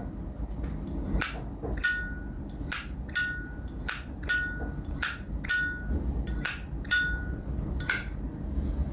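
A vintage Zippo lighter's hinged lid flicked open and snapped shut over and over, about a dozen sharp metallic clicks roughly half a second apart, each with a short bright ring: the lighter's prized 'nice sound'.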